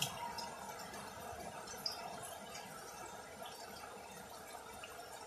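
Heavy rain falling, heard as a faint, steady hiss, with a single faint click about two seconds in.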